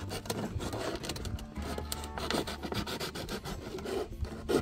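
Folding knife blade sawing through the thin plastic wall of an 8-litre water bottle: a quick, continuous scratchy rasping as the blade works back and forth along the cut.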